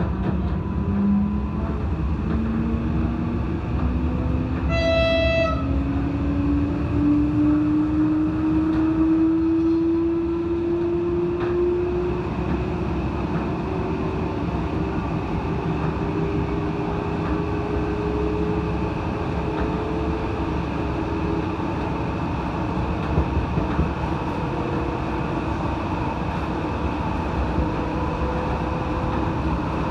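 Passenger train gathering speed, heard from inside the carriage: the drive's whine rises slowly and steadily in pitch over the running rumble. A short horn toot sounds about five seconds in.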